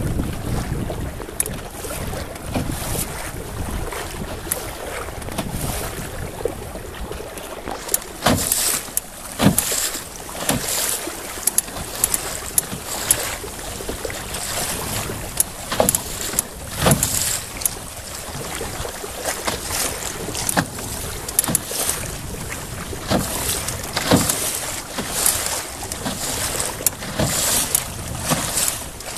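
Choppy lake water slapping against the hull of a moving aluminum canoe: irregular sharp splashes and knocks, several a second, over a steady rush of water and wind on the microphone.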